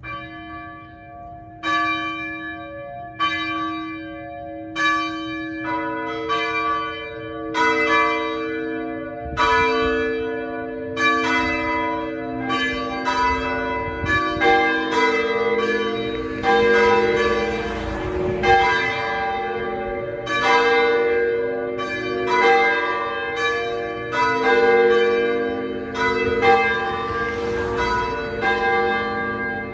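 Church bells ringing: several bells of different pitch struck one after another, each ringing on into the next, the strikes coming closer together after the first few seconds.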